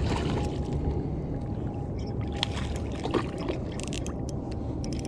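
A hooked rainbow trout splashing at the surface close to the bank, with scattered clicks over a steady low rumble.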